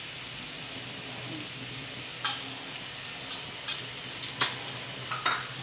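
Onion paste and ground spices sizzling steadily in hot oil in a pot, with a few sharp clicks of a metal spoon against the spice bowl, the loudest about four and a half seconds in.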